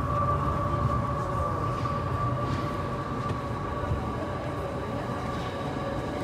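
Ambient drone soundtrack of a projection light show: a steady low rumble under a held high tone, with no beat.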